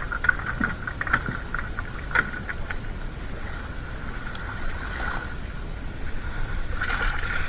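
Fish being handled and dropped into a plastic basket on a weighing scale: scattered light clicks and knocks, over a steady high-pitched hum and a low rumble, with a brief rustle near the end.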